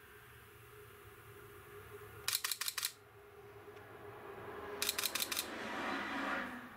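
Camera shutter firing in two rapid bursts of about six clicks each, continuous shooting, a little over two seconds apart. In the second half a rush of noise swells, then fades near the end.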